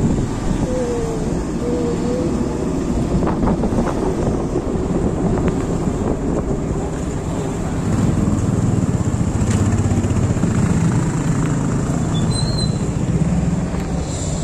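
A two-wheeler on the move: its engine runs under a steady rumble of wind and road noise on the microphone, which grows a little louder about eight seconds in.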